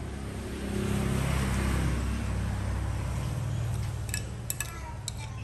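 A motor vehicle passing by: a low engine rumble that swells about a second in and slowly fades away. A few light clinks of a metal spoon on a plate near the end.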